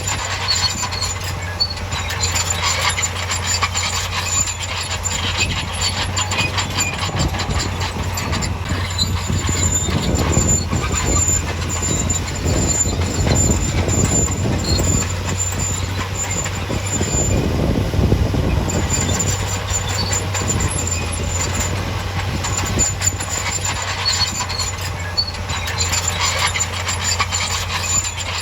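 Crawler bulldozer running with a steady diesel engine drone, its steel tracks clattering and squealing as it moves; the engine works harder from about ten seconds in to about nineteen seconds.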